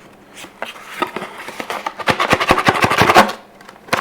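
Rattling and scraping of a smart lock's packaging and parts as they are handled and pulled at. Light handling noises come first, then from about halfway in a loud run of rapid clicks and rattles for just over a second.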